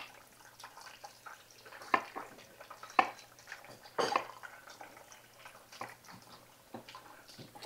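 Knife slicing bell peppers on a wooden cutting board: irregular sharp knocks of the blade hitting the board, the loudest about two, three and four seconds in, with quieter ticks between them.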